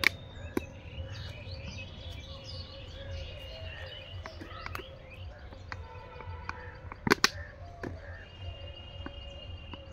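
Small birds chirping and twittering over a steady low outdoor background, with a few sharp clicks, the loudest a close pair about seven seconds in.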